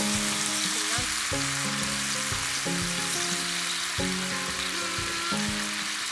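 Food sizzling on a hot iron griddle in a steady hiss, with a slow background melody.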